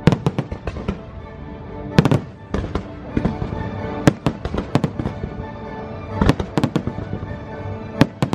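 Fireworks bursting in a string of sharp, irregular bangs over steady show music. The biggest bangs come near the start and about every two seconds after.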